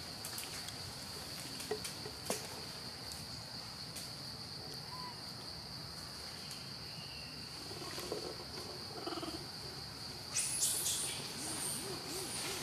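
Insects chirring steadily at a high, even pitch, with a brief sharp high-pitched sound about ten seconds in and a few low hooting calls near the end.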